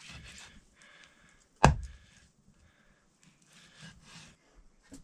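A single sharp knock about one and a half seconds in, with faint rustling and handling sounds around it.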